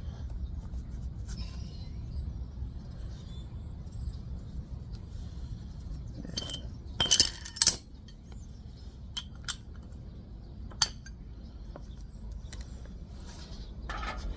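Metal hand tools clinking against metal over a steady low rumble. There is a quick cluster of sharp, loud clinks about halfway through, then a few single clicks.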